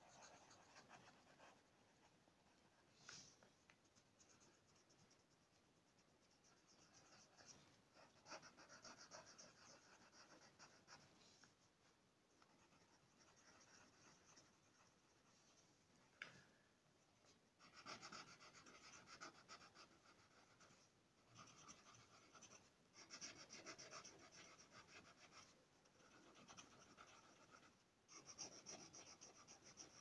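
Colored pencil shading on paper: faint, rapid back-and-forth scratching strokes in several spells of a few seconds each, with short pauses between.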